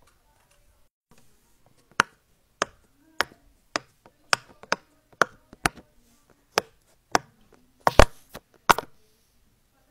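Silicone pop-it fidget toy being pressed, its bubbles popping one after another: a dozen or so sharp pops about half a second apart, starting about two seconds in. The loudest pops come near the end, as both hands push on the bubbles.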